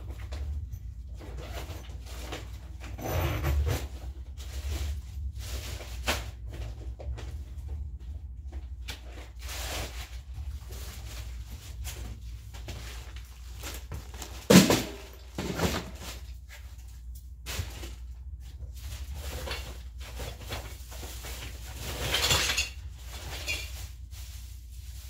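Stored items being handled and shifted while someone rummages through a storage unit: scattered knocks, clunks and rustling, with the loudest knock about halfway through, over a steady low hum.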